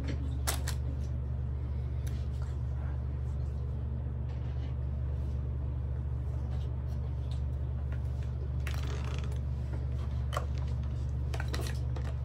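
A steady low hum, with scattered light clicks and rustles of small plastic toy kitchen pieces being handled, busier near the end.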